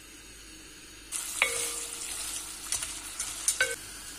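Egg noodles frying in oil and margarine in a pot: a steady sizzle that grows louder about a second in, with a few clicks of a utensil stirring against the pot.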